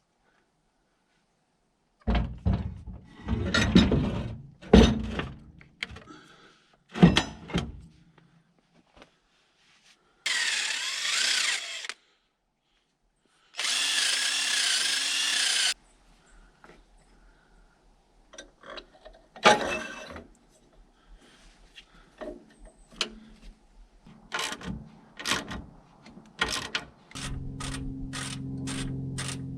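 Handheld power drill run in two bursts of about two seconds each, its motor pitch wavering under load, amid clanks and taps of tools on metal while a bolt is worked loose on a backhoe starter. A low steady hum comes in near the end.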